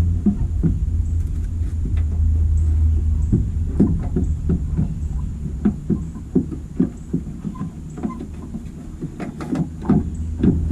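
Irregular light clicks and knocks from handling a tail-light assembly and its bulb socket, over a steady low hum that is strongest at the start and eases off.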